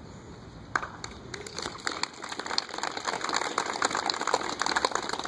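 A group of soldiers in formation applauding. The clapping starts about a second in and thickens into steady applause.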